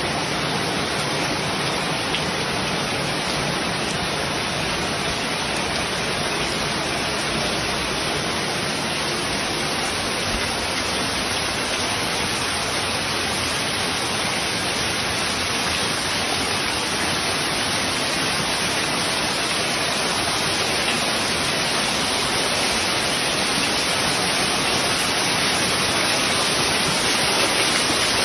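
Heavy rain falling steadily onto flooded fields and wet ground, a loud, even hiss that swells slightly near the end.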